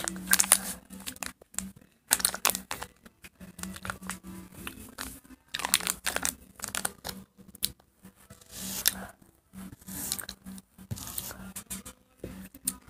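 A crinkly wrapper being crumpled and torn close to the microphone, in irregular crackling rustles.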